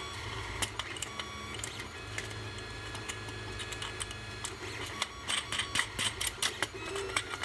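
Small metal nuts clicking and scraping as they are turned by hand onto screws in a 3D-printed plastic mirror cell, the clicks coming thicker in the last couple of seconds. A steady low hum lies underneath.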